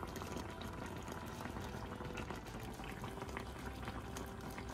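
Crème fraîche cream sauce simmering around pork chops in a frying pan on low heat, small bubbles popping steadily in a soft, continuous ticking.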